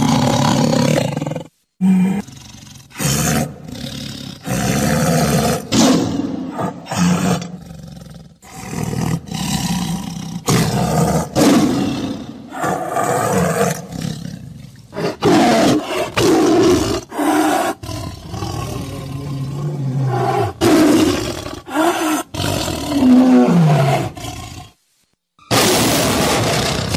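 Recorded tiger roars and growls played over a hall's loudspeakers, one loud call after another with short pauses between them.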